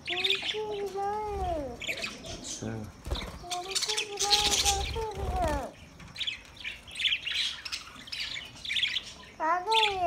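A flock of budgerigars chirping and chattering in quick, high calls. Three longer, lower calls that hold steady and then fall in pitch sound over the chatter, the longest in the middle and a short one near the end.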